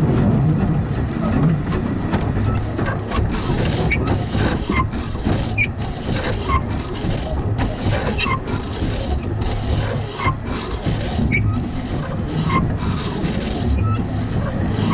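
Narrow-gauge Bagnall 0-4-0 saddle tank steam locomotive running slowly along the track with a steady low rumble. From about four seconds in, sharp clicks come roughly once a second and space out toward the end as the train slows.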